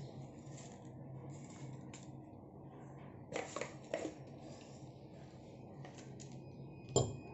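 Kitchen handling sounds over a faint steady low hum: a few light clicks and knocks about halfway through, and a sharper click near the end.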